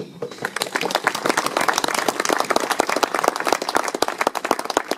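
Audience applauding: many hands clapping at a steady level for about five seconds.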